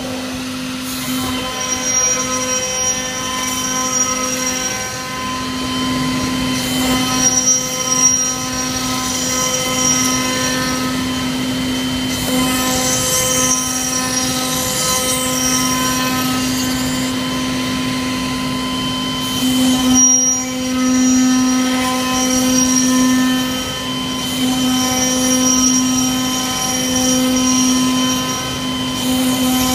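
CNC router spindle running steadily while its cutter mills a pocket in camphor laurel wood: a steady hum with a thin high whine that comes and goes, swelling and dipping a little as the cut loads and eases.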